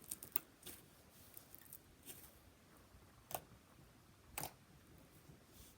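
Faint handling of butter slime: a few soft clicks and small snaps, with two sharper clicks in the second half.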